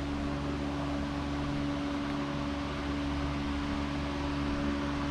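A steady machine hum with a few held tones over an even rush of air, like a running fan or air-conditioning unit.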